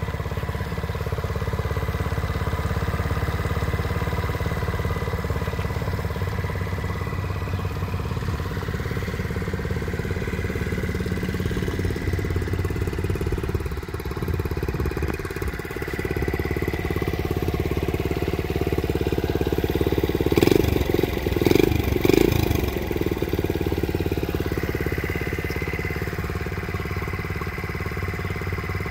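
1971 Honda CT70's small single-cylinder four-stroke engine idling steadily, briefly louder three times about two-thirds of the way through.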